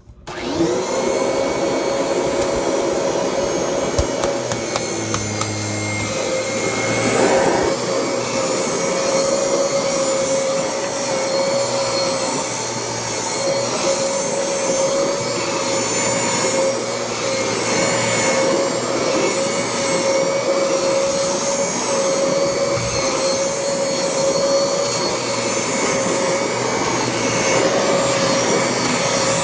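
Kirby Generation 3 upright vacuum cleaner switched on: the motor comes up to speed within a fraction of a second and keeps running with a loud, steady whine.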